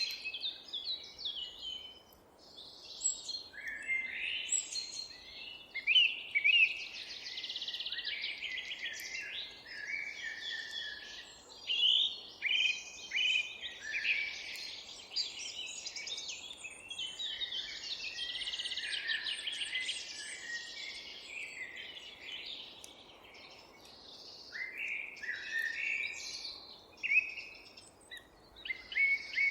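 Several songbirds singing at once, a dense chorus of overlapping chirps and warbling phrases, over a faint background hush.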